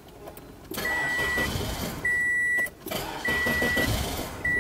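A car's warning chime beeping steadily, four even beeps about a second apart, each about half a second long. Such a chime typically sounds while the key is in the ignition or a seatbelt is unfastened.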